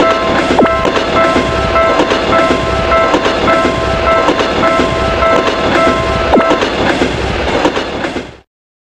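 Railroad crossing warning bell ringing in a steady repeated beat over the rumble and clickety-clack of a passing train. The bell stops about six and a half seconds in, the train sound carries on briefly, then all sound cuts off suddenly near the end.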